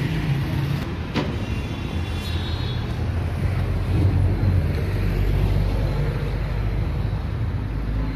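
Road traffic on a busy city street: a steady low rumble of passing cars, trucks and motorcycles, a little louder about four seconds in. A short sharp click sounds about a second in.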